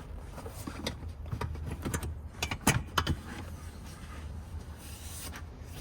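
Clicks and knocks from the metal bracket and tube of a Mercedes V-Class (W447) seat being handled during disassembly, irregular, the loudest two about two and a half and three seconds in, over a steady low hum.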